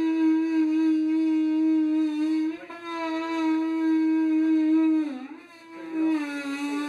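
A power tool running outside the ship's hull: a steady, high-pitched motor whine. It cuts out briefly about two and a half seconds in, sags in pitch and stops about five seconds in, then starts again at a slightly lower pitch.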